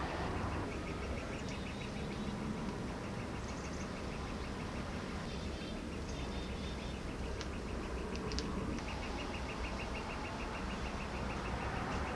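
Outdoor ambience: a steady low rumble with a rapid, even run of high-pitched ticks repeating several times a second through most of it, and a few brief high chirps partway through.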